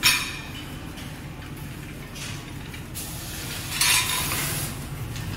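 Soft PVC anti-collision strips clattering and rustling against each other as a hand sorts through a boxful: a sharp clatter at the start and more bursts later, over a steady low hum.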